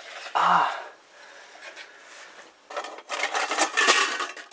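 A short vocal sound about half a second in, then a second and a half or so of dense scraping and rubbing close to the microphone.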